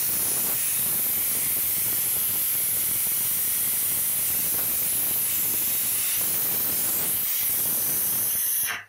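Glassworking torch flame hissing steadily as it heats a glass tube on a glass lathe; the hiss stops abruptly near the end.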